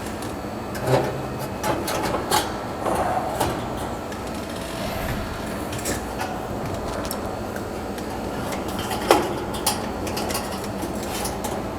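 Scattered clicks and knocks of the dryer's sheet-metal and plastic parts being handled and fitted back together, over a steady low hum. The sharpest knock comes about nine seconds in.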